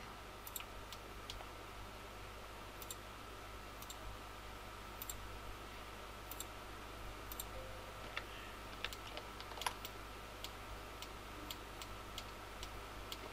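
Faint, irregular clicks of a computer mouse and keyboard, roughly one every second, over a low steady hum.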